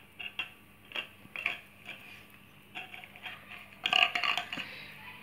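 A metal spoon clinking against a small glass jar as a dog licks inside it, in a string of short clinks; the loudest flurry of clinks comes about four seconds in, as a hand reaches for the jar.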